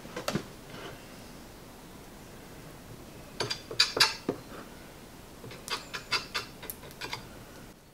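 Short scrapes and clicks of a small stick spreading epoxy onto a cleaver's steel tang. They come in bunches: a few near the start, a dense, loudest run around four seconds in, and another run from about five and a half to seven seconds in.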